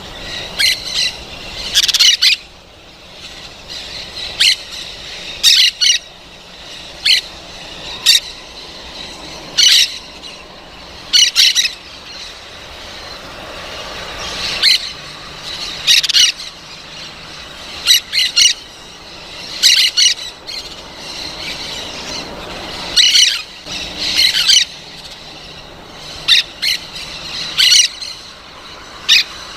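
Parrots squawking: short, harsh calls repeated every second or two, often two or three in quick succession.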